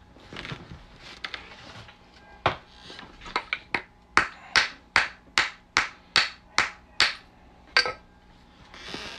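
Hammer tapping on metal coin-ring tooling. A few scattered sharp taps come first, then a steady run of about eight taps at two or three a second, each with a short ring, and one last tap near the end.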